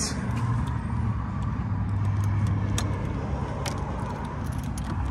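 Steady low rumble of busy highway traffic, with a few light clicks of a door's lever handle and deadbolt hardware being tried.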